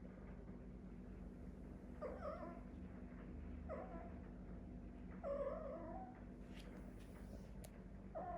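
A house cat giving short, pitched meows a second or two apart, four in all, the third one longer than the others.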